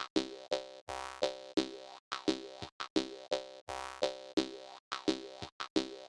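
Jaw harp music: quick, rhythmic twanging plucks on one fixed drone pitch, about three a second, with short silent breaks between some notes.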